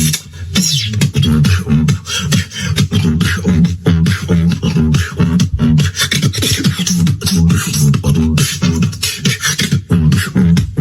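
Solo human beatboxing: fast kick, snare and hi-hat-like mouth sounds over a heavy, pitched vocal bass line that steps between notes.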